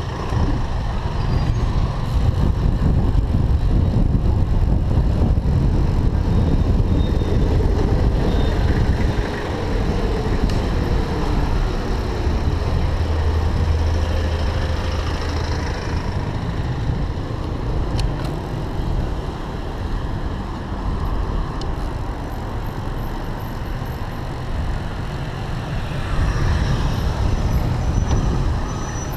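Street traffic heard from a road bike moving through city streets: motor vehicles running, over a steady low rumble of wind on the microphone. An engine note rises and falls around the middle.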